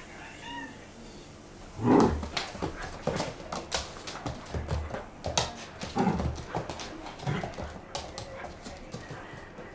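A Doberman's sounds: from about two seconds in, a few short low vocal sounds among a dense run of sharp clicks and taps.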